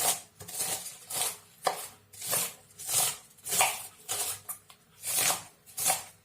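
A knife chopping a cabbage on a cutting board: crisp, crunchy strokes through the leaves at a steady pace of about one every half second to a second.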